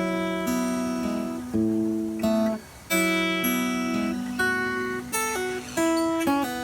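Solo acoustic guitar playing a slow instrumental piece, chords plucked or strummed and left to ring, a new chord about every half second to a second.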